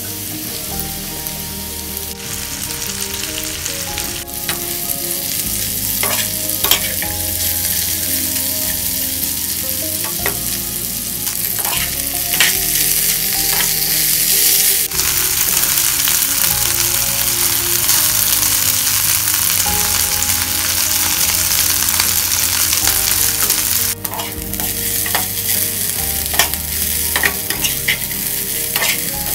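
Bitter gourd (karela) slices in gram-flour batter sizzling as they fry in hot mustard oil in a frying pan, with a spatula clicking and scraping against the pan as they are stirred. The sizzle grows louder over the first several seconds after the slices go in.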